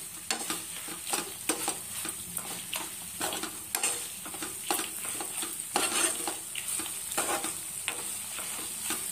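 Metal spatula stirring and scraping in a kadai of greens frying in oil with a tempering of dals, garlic and dried red chillies. Irregular scrapes and clinks, several a second, run over a steady sizzle.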